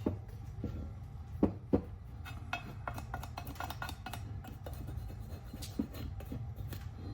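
Scattered light clinks and knocks of metal parts and tools being handled on a workbench, over a steady low hum.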